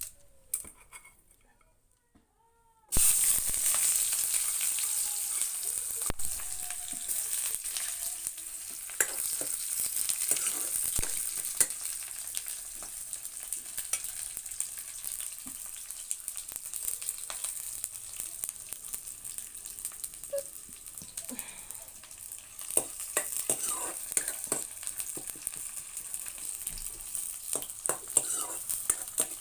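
Food sizzling in hot oil in a pan, starting suddenly about three seconds in, with a spoon scraping and knocking against the pan as it is stirred.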